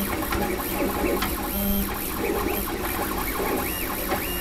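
JGAurora A5 3D printer printing: its stepper motors whine in short tones that step up and down in pitch as the print head moves, over the steady whir of its cooling fans turned down to 75% speed.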